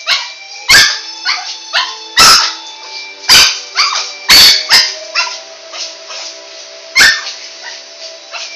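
Small white long-haired dog barking: a run of sharp, loud barks about a second apart, then a pause and one more bark near the end.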